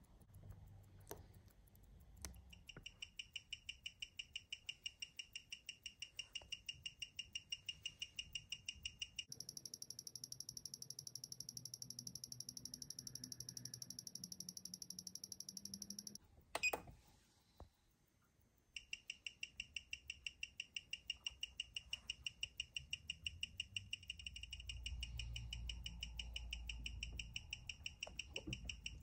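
Freshly serviced AS 1916 automatic watch movement running, its balance beating in a fast, steady tick. The ticking changes tone a third of the way in, stops after a sharp click at about two-thirds, and resumes a couple of seconds later.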